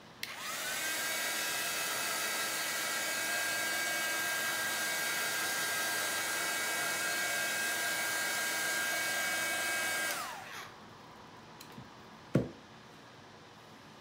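Handheld heat gun switched on, its fan whine rising and settling into a steady high-pitched whine with a blowing hiss, then switched off about ten seconds in and winding down. A single short knock follows about two seconds later.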